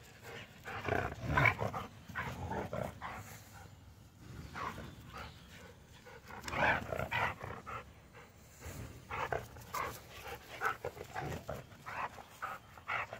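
Two dogs, a large white dog and a small brindle mountain feist, play-fighting: panting and short dog vocal noises that come in irregular bursts.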